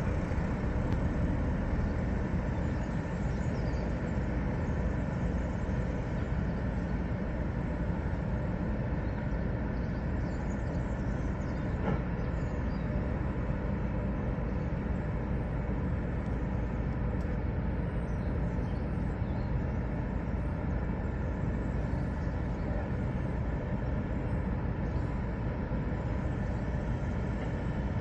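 Steady harbour ambience: a continuous low rumble with a faint constant machinery hum running through it, and no single sound standing out.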